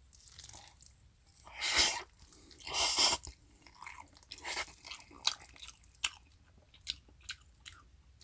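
Close-miked eating: two louder noisy mouthfuls about a second apart, then a run of short, wet chewing and lip-smacking clicks.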